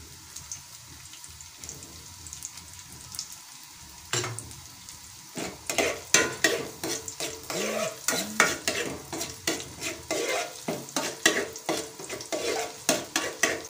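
Sliced onions sizzling in hot oil in an aluminium pot, being browned till golden. About four seconds in, a steel spoon starts stirring them, scraping and clinking against the pot in quick repeated strokes.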